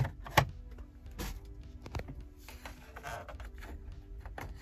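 Plastic dash trim and its clips clicking and snapping as the centre dash panel is pried loose with a pry tool, with a sharp snap about half a second in and a short scrape near the middle. Background music plays underneath.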